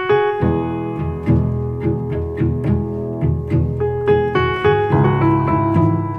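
Music: a piano playing a steady stream of notes over a low bass, with no singing.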